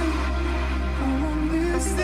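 Background music: an electronic pop song with a steady bass and a gliding melody line, in a short gap between sung lines.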